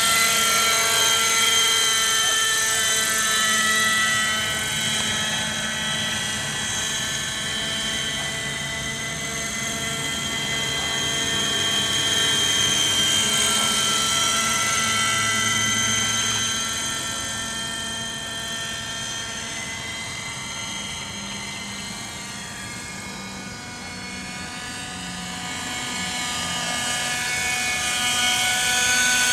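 Vintage Kalt Baron 50-size RC helicopter in flight, its OS 50 two-stroke glow engine running steadily with a high whine and the rotor noise. The pitch drifts slightly, and the sound fades for a few seconds past the middle, then grows louder again near the end.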